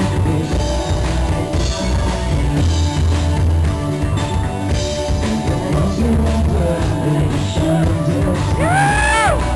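Live rock band playing loud on a drum kit with a heavy low beat, a singer on a handheld microphone over it. About nine seconds in, a high note slides up and falls away.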